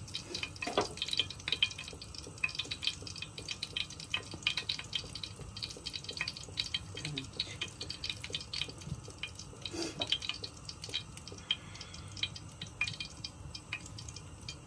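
Hot oil in a frying pan on the stove crackling and spitting, a steady stream of quick irregular pops as it heats for frying chebureki.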